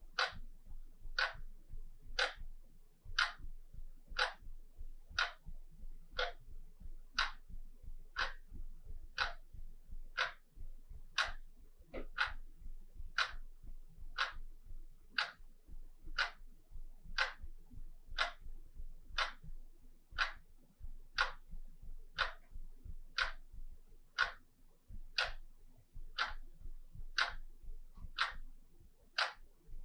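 Wall clock ticking steadily, about one sharp tick a second.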